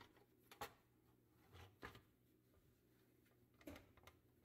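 Faint, scattered clicks and knocks of a rusty pressed-steel toy truck and its cab being handled and set down on a wooden bench, about half a dozen small taps.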